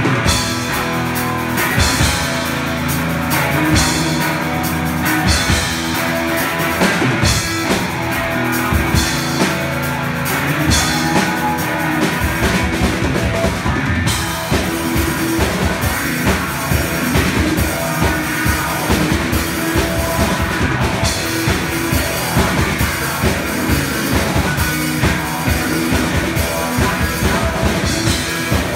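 Live rock music from a guitar-and-drums duo: electric guitar through an amplifier over a full drum kit. About twelve seconds in, the drumming settles into a steady, evenly spaced beat.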